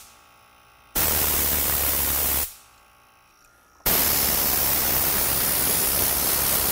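Compressed-air blow gun blasting: a hiss of air starts abruptly about a second in and lasts about a second and a half, then a second blast starts just before four seconds in and holds steady.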